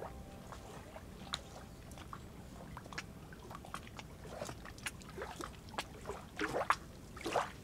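Small waves lapping and sloshing at the edge of a lake, with scattered light splashes and plops, a few louder ones near the end.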